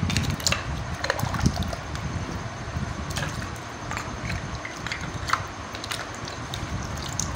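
Water splashing and sloshing as a hand washes small clay cups in a steel pot of water, with scattered light knocks and clinks of the cups against each other and the pot.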